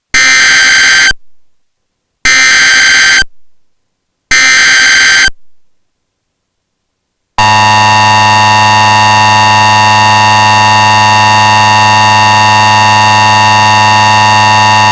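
Emergency Alert System tones. Three one-second bursts of the SAME digital header, a harsh data screech, about a second apart. About seven seconds in, the loud, steady two-tone EAS attention signal starts.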